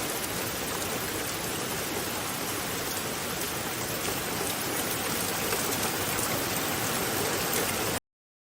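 Steady hiss of rushing water that cuts off abruptly near the end.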